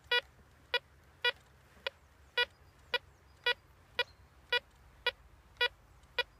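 Pirate Treasure Hunter 2 Pro metal detector giving short single-tone beeps, about two a second, one on each pass of the coil over a hole holding rusty iron nails and a coin buried 20 cm deep.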